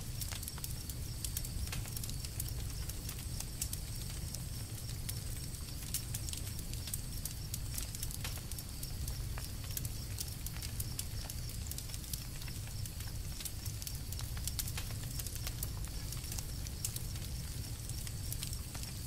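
Campfire crackling: burning wood gives off frequent small irregular pops and snaps over a steady low rumble.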